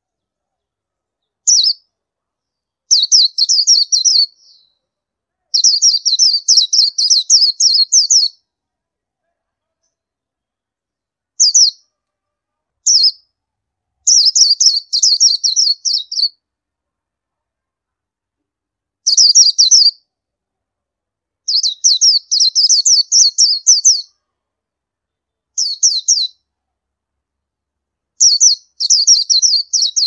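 Oriental white-eye singing: high, rapid twittering phrases made of quick chirps. About ten phrases come, from short single bursts to runs of two or three seconds, separated by brief silent gaps.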